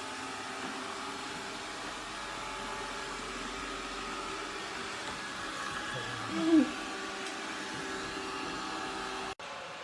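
Shark ION R75 robot vacuum running steadily, a motor hum with a layered whine. About six and a half seconds in, a brief louder sound with a rising-then-falling pitch cuts across it, and just before the end the sound breaks off abruptly.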